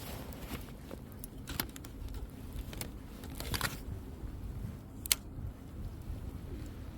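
Close handling noise: a few sharp clicks over a low rumble, with one louder click about five seconds in.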